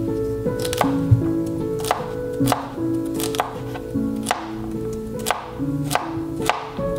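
Chef's knife chopping crisp celery stalks on a plastic cutting board: irregular sharp knocks, roughly one to two a second. Background music with held melodic notes plays underneath.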